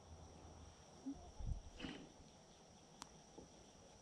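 Near quiet, with faint sounds of hands handling a fishing rod and line, a few soft knocks, and one sharp click about three seconds in.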